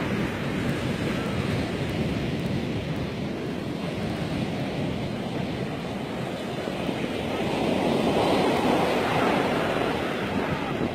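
Ocean surf breaking and washing up a sandy beach in a steady rush, with wind on the microphone. A wave surges louder about eight seconds in.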